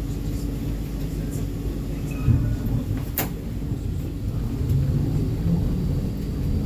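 Inside an E2 Class tram on the move: a steady low rumble of the tram running, with a knock about two seconds in and a sharp click a second later. Near the end, a low hum grows louder and starts rising in pitch as the tram picks up speed.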